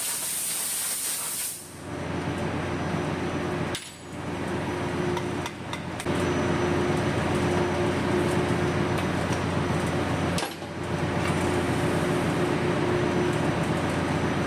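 Compressed-air blow gun hissing, cutting off about a second and a half in. A steady machine noise with a low hum follows, briefly dropping out twice.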